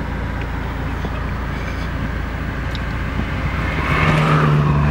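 Road and engine noise inside a moving car's cabin: a steady low rumble, with an engine hum coming in and getting louder near the end.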